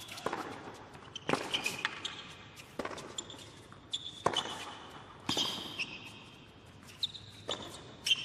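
Tennis rally on a hard court: sharp racket hits and ball bounces come roughly every second or so, and player shoes squeak on the court surface.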